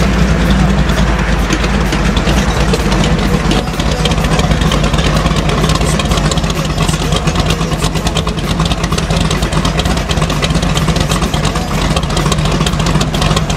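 1957 Chevrolet Bel Air's engine idling steadily with a deep, low note as the car creeps along at walking pace.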